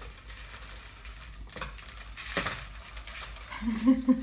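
A sticky mass of Rice Krispies and marshmallow rustling and crackling as it is tipped and shaken out of a glass container, with a few soft knocks.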